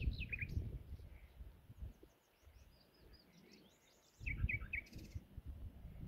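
Common nightingale singing from dense scrub: a quick run of falling notes at the start, a string of high thin notes in the middle, and a loud phrase of rapidly repeated notes about four seconds in. A low, uneven wind rumble on the microphone comes and goes, dropping away in the middle.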